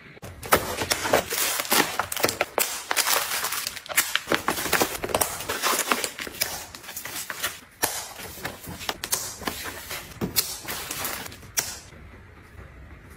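A quick, dense run of clicks, taps and crinkles from objects being handled. It stops suddenly near the end.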